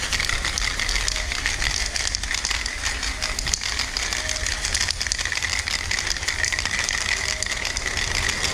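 Aerosol spray paint can hissing as paint is sprayed onto a wall, the hiss flickering unevenly, over a low rumble.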